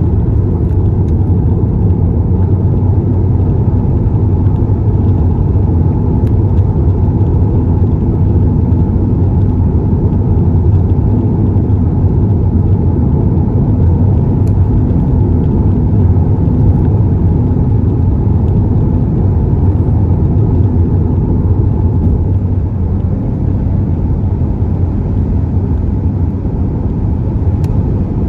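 Car driving at road speed, heard from inside the cabin: a steady low engine drone under tyre and road roar, easing slightly near the end.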